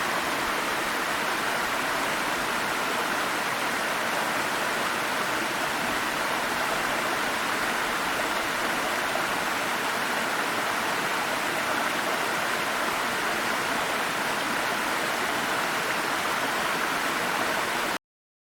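Waterfall rushing in a steady, even roar of falling water, cutting off abruptly near the end.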